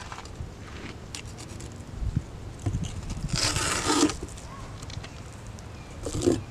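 Chef's knife scraping and cutting on a wooden table top as lingcod fillets are portioned: a long scrape about three and a half seconds in, a shorter one near the end, and a few light knocks.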